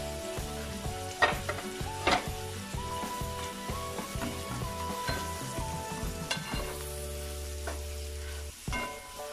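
Chicken pieces with ground spices sizzling in butter in a pot while a wooden spatula stirs them, with two sharp knocks of the spatula against the pot about a second and two seconds in.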